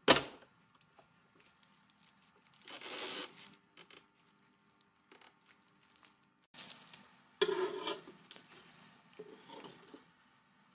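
Tristar electric contact grill being handled: the hinged lid knocks shut right at the start, and later come a few louder clatters and scrapes of a metal spatula on the ridged grill plate as the grilled naan is lifted.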